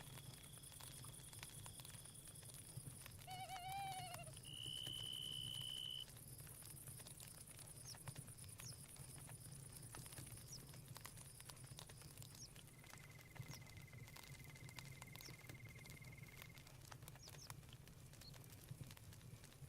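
Night-forest ambience, faint: insects trilling in steady high tones, with a louder trill for about a second and a half near the start and a lower pulsing trill later on. A short wavering animal call comes about three and a half seconds in, and scattered soft campfire crackles run under it all.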